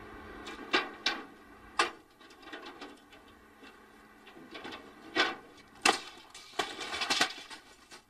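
Sharp knocks and bangs from a refrigerator being rocked on a truck bed and tipped off, crashing onto the pavement and breaking apart. The impacts come one by one, with a burst of several close together about six to seven seconds in.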